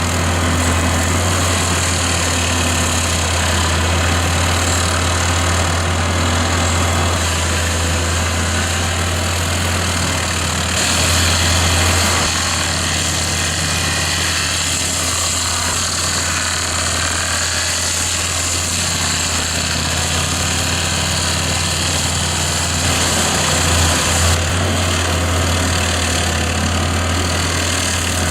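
Heavy excavator's diesel engine running steadily, a constant low drone with hiss above it.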